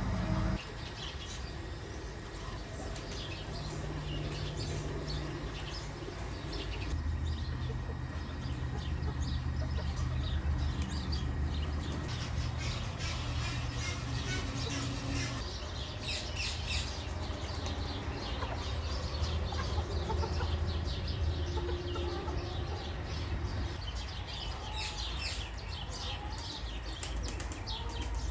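Chickens clucking among other birds chirping, over a steady low rumble.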